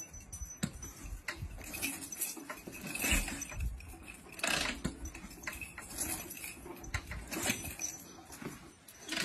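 Harley-Davidson V-twin being kick-started over and over without firing: the kick pedal and bike clank and rattle with each stomp, a burst of noise every second or two, and the engine never catches.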